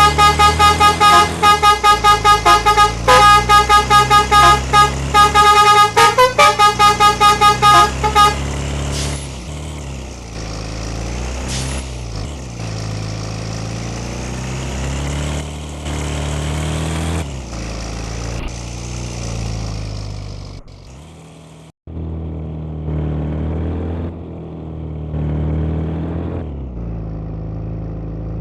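A Basuri 'telolet' multi-tone bus horn plays rapid toots, several a second, for about eight seconds. Then a bus engine runs, its pitch rising and falling, with a brief break near the end.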